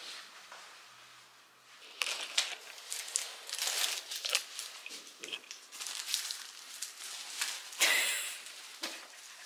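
Thin plastic garbage bag rustling and crinkling as it is handled, starting about two seconds in and going on in quick, uneven crackles.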